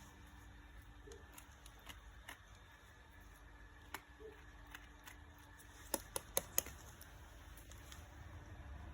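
Quiet, with faint scattered clicks and a quick run of four sharper clicks about six seconds in, over a faint steady hum.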